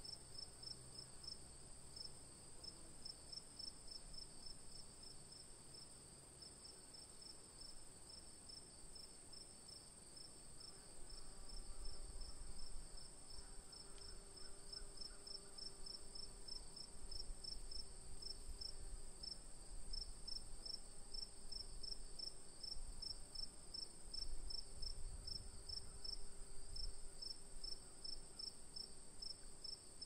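Crickets chirping in a fast, even rhythm over a steady high-pitched trill, with a low rumble in the background from about a third of the way in.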